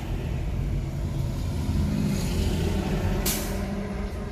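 Road and tyre rumble inside a moving electric car, with a steady low hum from about two seconds in and a short, sharp hiss a little after three seconds.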